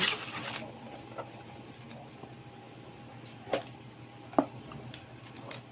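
A smartphone's retail box being handled and opened by hand: a brief rustle at the start, then two short knocks or scrapes about three and a half and four and a half seconds in.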